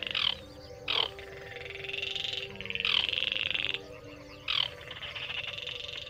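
Baillon's crake calling: two rattling trills of about a second each, some three seconds apart, each led in by short downward-sliding notes.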